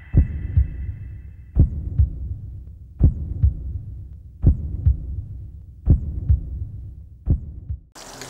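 Slow heartbeat on the soundtrack: paired low thumps, lub-dub, repeating about every second and a half, over a faint high ringing that fades away in the first second and a half. Near the end it cuts suddenly to a loud rushing noise with a steady hum.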